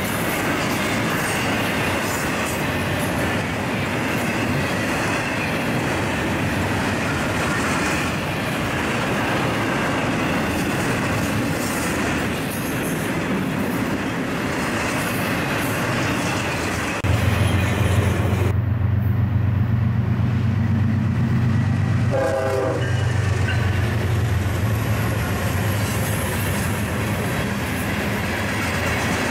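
Freight train of double-stack intermodal well cars and boxcars rolling past: a steady rushing rumble of steel wheels on the rails with clicks over the joints. About 17 seconds in a loud low hum comes in for about five seconds, then fades back into the wheel noise.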